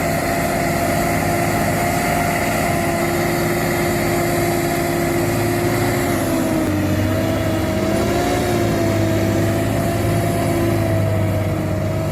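Heavy farm tractor diesel engines running steadily under load while pulling a bogged tractor out of deep mud, the engine note wavering in pitch about halfway through.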